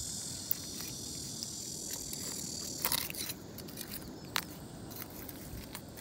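Insects chirring: a steady high trill that fades about halfway through, with a couple of sharp clicks.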